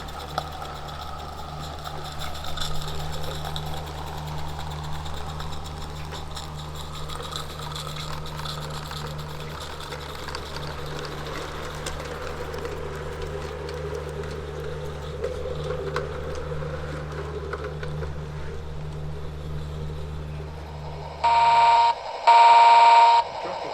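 Battery-powered 16mm-scale model locomotive running with a steady engine hum, then two loud toots from its electronic sound unit's horn near the end.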